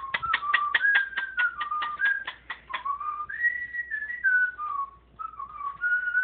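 Whistling: a tune of clear single notes stepping up and down in pitch. Sharp clicks come about five a second through the first three seconds, then the notes are held longer.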